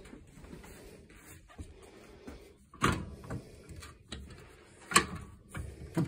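Knocks and clatter as the hinged glass cover of a Suburban RV gas range is handled and lifted: two sharp knocks about two seconds apart, with lighter clicks between.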